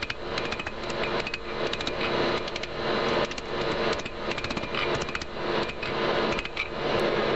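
Blacksmith's hand hammer striking a red-hot steel connecting rod from a Harley-Davidson WLA-42 engine on an anvil, in quick runs of blows, while the rod is drawn out into a knife blade. A steady hum runs underneath.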